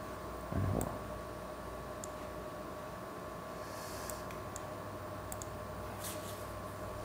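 Computer mouse clicks: a few scattered single clicks over a faint steady electrical hum and room tone. A brief low thud comes about half a second in and is the loudest moment.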